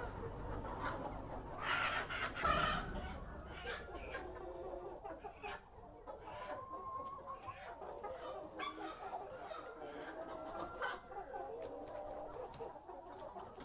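A flock of chickens, hens and roosters together, clucking throughout, with one louder call about two seconds in.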